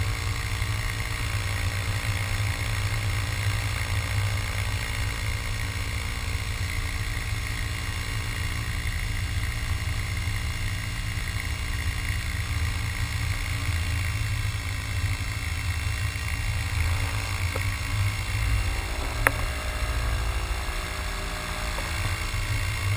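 Electric paramotor's motor and propeller running steadily in flight, with heavy wind buffeting on the camera microphone. A single sharp click about nineteen seconds in.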